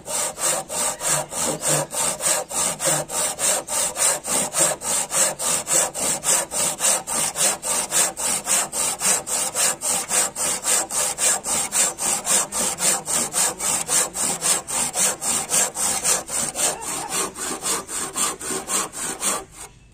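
Handsaw cutting across a squared wooden beam in steady back-and-forth strokes, about three a second, stopping just before the end.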